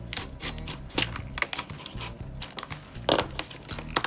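Stiff plastic packaging crackling and clicking in irregular snaps as it is handled and pried open, with one louder crackle about three seconds in.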